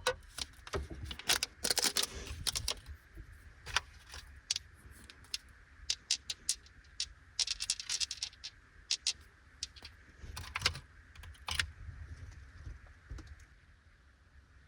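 Crinkling of a plastic candy wrapper with small sharp clicks and taps, in clusters, as candy is unwrapped and handled. The sounds thin out near the end.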